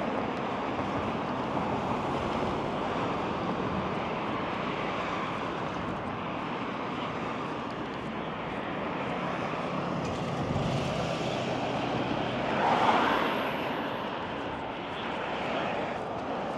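Steady city street traffic noise from passing vehicles, with a louder swell about thirteen seconds in.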